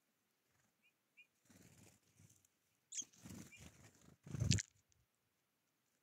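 Blue tits and great tits at a feeder: a few faint high call notes and several short fluttering, rustling bursts of wings and pecking, the loudest about four and a half seconds in.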